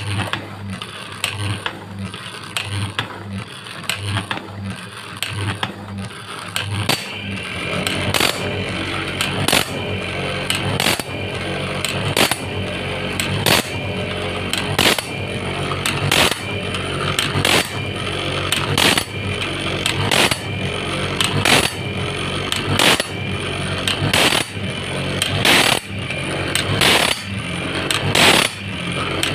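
Homemade automatic saw-sharpening machine running on a bandsaw blade: its electric motor hums steadily while the grinding wheel strikes and grinds each tooth in turn, in a regular rhythm of about one stroke a second. The grinding grows louder about a quarter of the way in.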